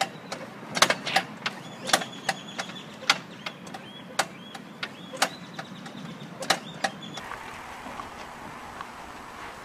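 Irregular sharp knocks and creaks of a wooden board fence as two goats push and butt their heads against it, roughly one or two a second. The knocks stop about seven seconds in, leaving a faint steady hiss.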